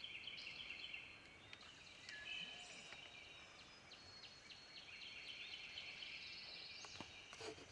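Faint distant songbirds trilling over a quiet outdoor background.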